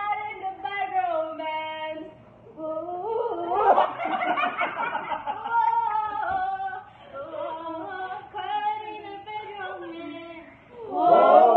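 A group of people laughing, with sung notes from several voices in between and a loud burst of overlapping laughter and voices about four seconds in.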